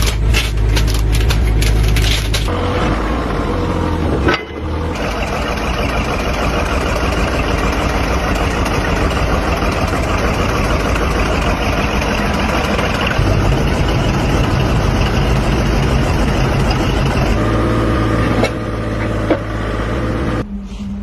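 Heavy diesel engine of a bulldozer running steadily, with rapid metallic clanking in the first couple of seconds. The sound breaks off abruptly for a moment about four seconds in.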